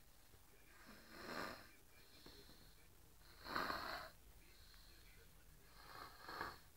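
A sleeper snoring softly: three snores, one every two and a half seconds or so, the middle one loudest.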